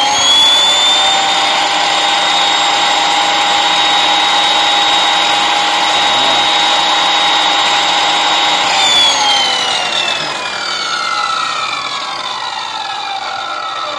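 355 mm metal cut-off saw (rated 2200 W, 3800 rpm) running free with no cut. Its motor whine rises to a steady pitch in the first second and holds. About nine seconds in it is switched off and the whine falls steadily as the blade spins down.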